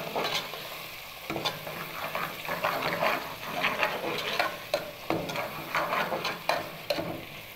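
Metal spoon stirring chopped onions and turmeric frying in hot oil in a metal pot: a steady sizzle with repeated scrapes and clicks of the spoon against the pot.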